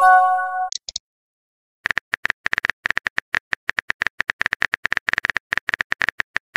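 Texting-app sound effects: a short message-arrival chime of a few steady notes, then after a second's pause a run of rapid keyboard-tap clicks, several a second, for about four seconds.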